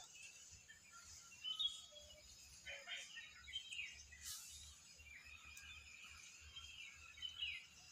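Faint bird calls: scattered short chirps and brief whistled notes over a low outdoor background hum.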